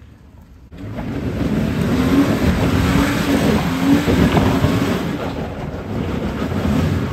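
Lifted Jeep Wrangler's engine revving under load as it climbs a rocky, muddy hill. It comes in sharply about a second in and stays loud, rising in pitch in a couple of places.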